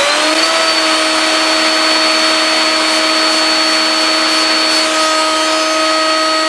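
Table-mounted router with a corner lock cutter, finishing its spin-up in the first half second and then running at a steady high whine as a drawer piece is fed past the cutter.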